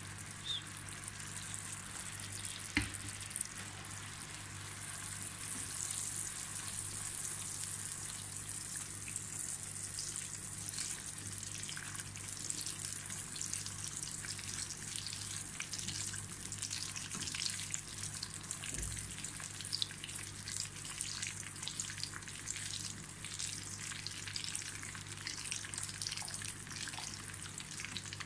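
Hot oil sizzling and crackling in a non-stick wok with whole spices frying in it; the crackle grows denser after about five seconds. A steady low hum runs underneath.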